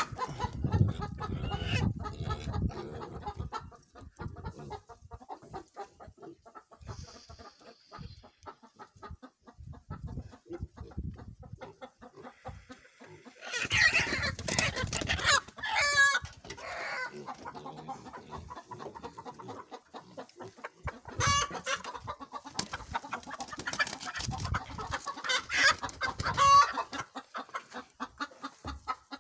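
Kuroiler chickens clucking, with loud wavering squawks about halfway through and several more in the second half as a hen is held by her legs. There are low bumps and rustling in the first few seconds.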